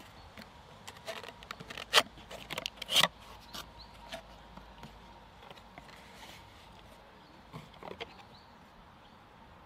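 Cardboard box being opened by hand: a string of clicks and taps as the flaps are worked open, with two sharp, louder snaps about two and three seconds in, then a few softer handling taps near the end.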